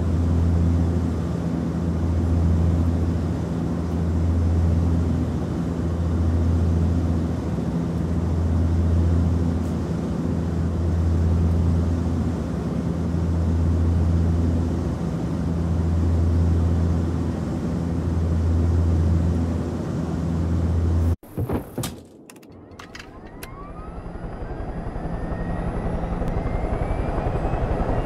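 Low aircraft engine drone that swells and fades about every two seconds. About three-quarters of the way in it cuts off abruptly with a few clicks. A helicopter engine then starts up, its whine rising in pitch while the rotor beat builds and quickens.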